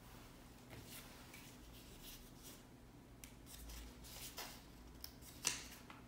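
Faint rustling and small clicks of a printed paper card being handled, with one sharper crinkle about five and a half seconds in.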